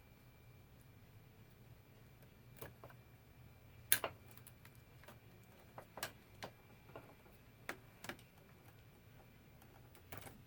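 Scattered light clicks and taps of tools and small parts being handled on a workbench, the sharpest about four seconds in, over a faint steady hum.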